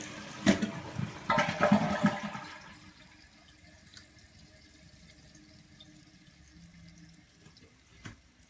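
A 2010 Kohler Wellworth Class 5 toilet (1.6 gpf) flushing: loud rushing, gurgling water for about two and a half seconds, which then dies down to a quiet, steady run of water. There is one sharp click near the end.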